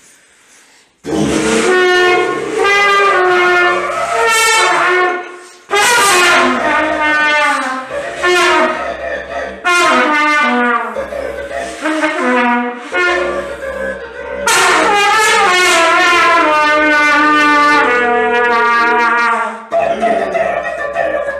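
Trumpet playing a tune in short phrases with brief breaks, beginning about a second in, joined by a second wind instrument with a low part.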